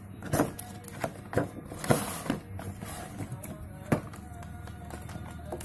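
Cardboard box and its plastic packaging being handled as a toy RC car is taken out: a series of knocks and clicks, the sharpest near the end, with a rustle of packaging about two seconds in. Faint music plays underneath.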